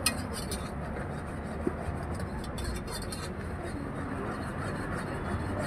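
Steady low background rumble, with a few light clicks and scrapes of a metal serving spoon against a plastic bowl as topping is scooped and spooned onto nachos.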